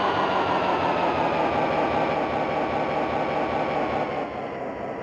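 Sampled sound of a late-model EMD diesel locomotive engine from a QSI QS-2 Plus model-train sound system, running with a steady throb and a whine that falls slowly in pitch. About four seconds in, the sound steps down in level.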